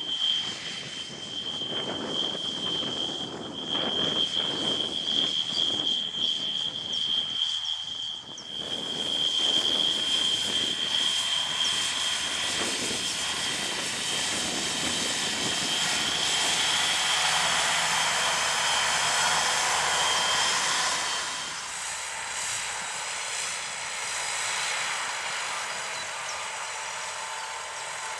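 Fendt 820 Vario tractor working under load with a plough: a steady engine drone with a high whine over it. The sound grows louder about a third of the way in, then eases and the whine stops about three quarters of the way through.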